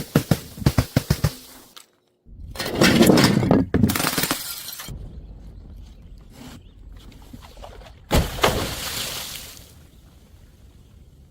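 Glass bottle clattering down stairs in a quick run of hard knocks, then glass smashing with shards scattering, twice: once about two seconds in and again about eight seconds in.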